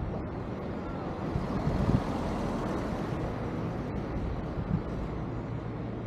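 Steady outdoor street noise: a low rumble of traffic, swelling a little around two seconds in.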